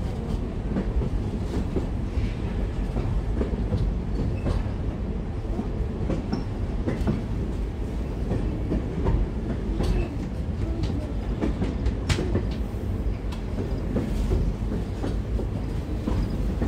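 Passenger train rolling along the track, heard from aboard: a steady low rumble of wheels on rail with scattered irregular clicks and clanks, one sharper clank about twelve seconds in.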